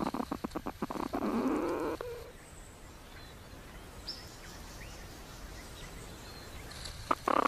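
A quick run of clicks and rustling for about the first two seconds, then a quiet outdoor background with a few faint bird chirps.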